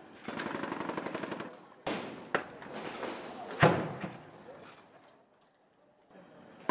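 Automatic gunfire: a burst of rapid shots at about ten a second lasting just over a second, followed by several separate, louder shots, the loudest about halfway through with a trailing echo.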